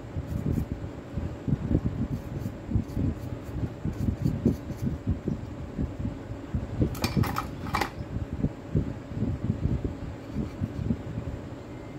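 Steady mechanical hum like a fan, under irregular low rumbling and thumping from parts being handled on a rubber mat, with three quick sharp clicks about seven seconds in.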